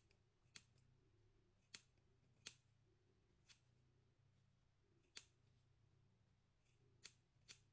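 Small blunt-tipped scissors snipping through a cat's matted fur: about seven short, sharp snips at uneven intervals.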